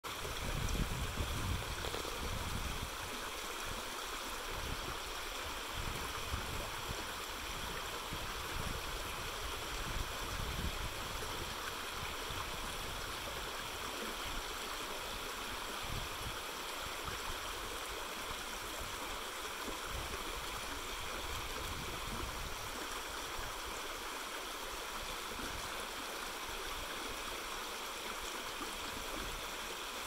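Shallow woodland brook babbling steadily over stones and small riffles, an even rushing hiss, with a few low rumbles in the first few seconds.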